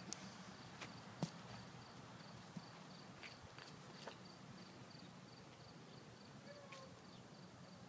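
Near silence with a faint, thin, high cricket chirp pulsing steadily, and a few soft ticks, the clearest about a second in.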